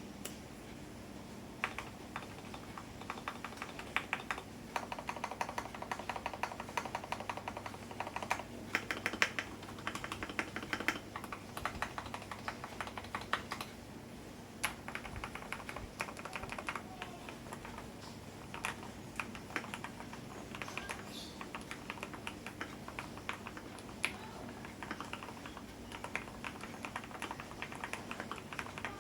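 Typing on a Keydous NJ80 75% mechanical keyboard with Akko ASA-profile keycaps: fast runs of keystrokes broken by short pauses, with a few single louder key presses between the runs.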